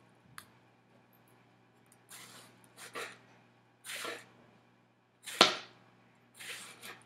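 Kitchen knife slicing through a tomato onto a cutting board: five separate cuts, each a short hiss, the fourth the loudest with a sharp knock.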